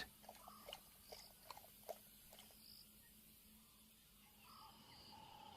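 Near silence: faint outdoor ambience with a few soft clicks in the first two seconds and some faint, short high chirps.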